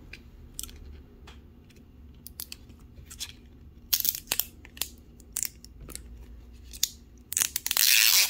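Printed wrapper of an L.O.L. Surprise toy ball being peeled and torn off along its zip strip: scattered small clicks and crinkles, with louder tearing and crinkling about four seconds in and again near the end.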